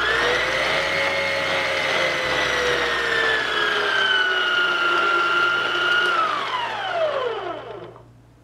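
Electric stand mixer running with its flat beater through a thin egg-and-sugar mixture: a motor whine that spins up at the start, holds steady with a slight sag in pitch, then winds down over about two seconds as the mixer is switched off.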